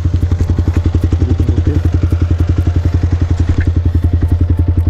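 Yamaha R15M's single-cylinder engine idling through an aftermarket Akrapovic exhaust, a steady, even beat of about ten pulses a second.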